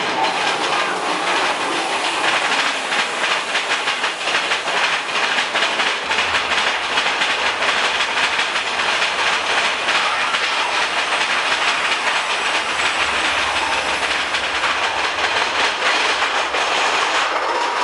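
Mine-train roller coaster cars rattling and clattering along the track at speed, a dense, steady run of clicks and rumble.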